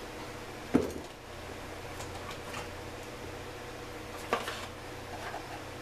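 Hand tools and parts being picked up and set down on a workbench: a sharp clack about a second in, another a little past four seconds, and lighter clicks between, over a steady low hum.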